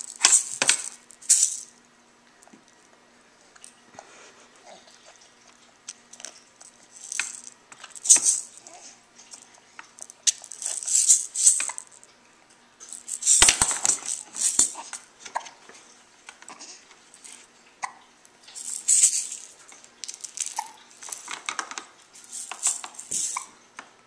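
Toy rattle shaken in short bouts of rattling, about ten of them, with pauses of a few seconds between.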